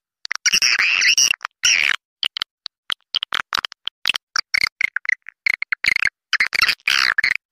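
Swiftlets twittering: rapid high chirps and clicks, with two dense bursts of chattering, one near the start and one near the end. It is a swiftlet call recording of the kind played to lure swiftlets into a nesting house.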